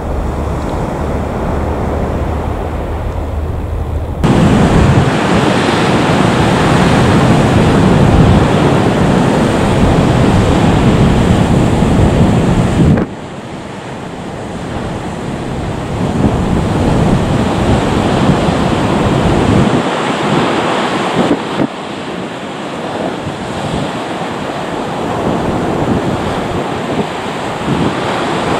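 Wind buffeting the microphone over the rushing noise of airliner jet engines: first an Embraer E190 climbing away, louder from about four seconds in, then, after an abrupt cut about 13 seconds in, a Boeing 737 MAX 8 with CFM LEAP-1B engines on final approach and touching down.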